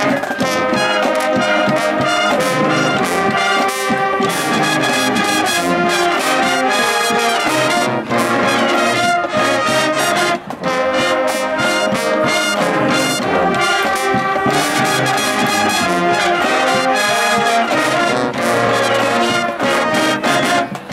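High school marching band playing a brass-led tune, with drum hits keeping a steady beat; the music dips briefly about halfway through.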